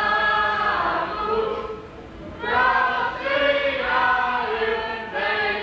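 Voices singing a song in long held notes, with a short break about two seconds in.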